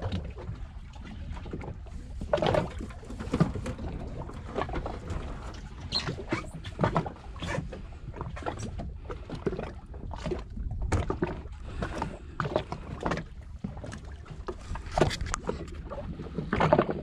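Fishing boat drifting on a calm sea: a low steady rumble with irregular knocks, creaks and small splashes of water against the hull.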